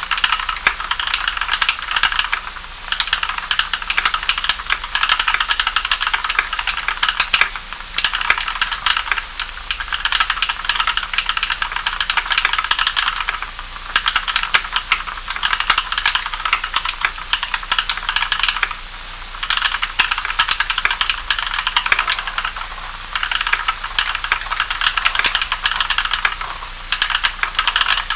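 Fast, continuous typing on a mechanical keyboard with Kailh Cream linear switches lubed with Krytox 105 oil, with 75 g springs and switch films: a dense run of keystroke clicks broken by short pauses every few seconds.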